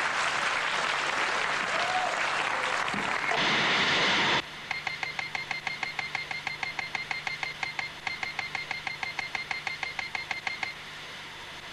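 Studio audience applauding, cut off abruptly about four and a half seconds in. A rapid string of short electronic beeps follows, about seven a second, a text-typing sound effect as on-screen lettering appears character by character, over a faint low hum. The beeps stop about a second before the end.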